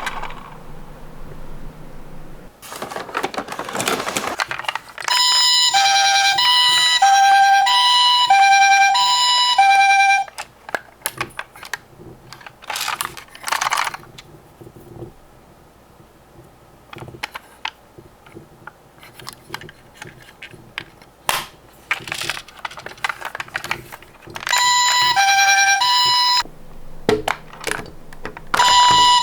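Toy ambulance's electronic two-tone siren, alternating high and low notes for about five seconds, then falling silent and sounding again briefly near the end. In between come scattered clicks and knocks and two short bursts of noise, one a few seconds in and one about halfway.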